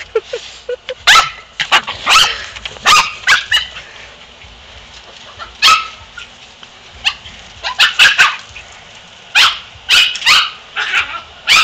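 A dog barking: about twenty short, sharp barks in irregular bursts of one to four.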